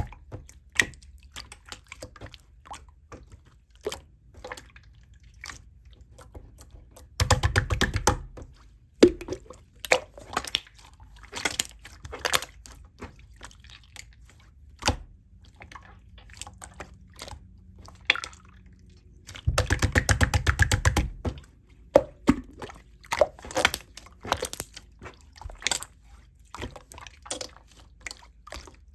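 Homemade slime being squeezed and poked by hand: irregular wet clicks and squelches, with two longer spells of dense crackling clicks, about seven seconds in and about twenty seconds in.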